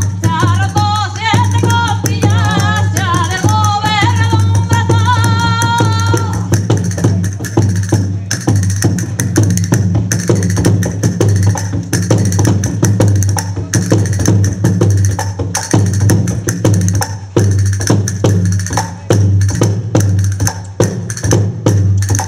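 A traditional Spanish folk dance tune: a woman's singing over a steady beat on a square frame drum struck with a stick. The singing stops about six seconds in, and the drum beat carries on alone.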